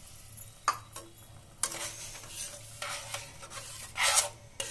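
A flat metal spatula stirring and scraping a watery masala mixture against the sides of a stainless steel pan. There are several separate scrapes about a second apart, the loudest near four seconds in.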